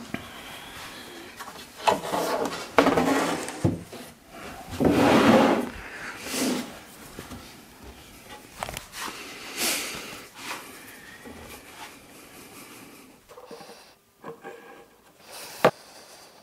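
Walnut-veneered plywood cabinet parts being handled on a wooden workbench while the shelf is glued in: wood sliding and rubbing, with a few sharp knocks, the sharpest near the end.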